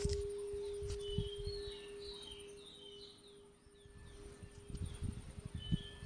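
Large hanging temple bell's ring fading slowly away, one steady hum that dies out over several seconds. Birds chirp repeatedly over it, with a few low thumps.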